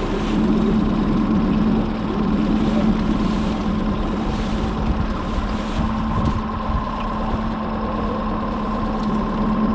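Boat's outboard motor idling steadily: an even low hum with a fainter higher whine over it.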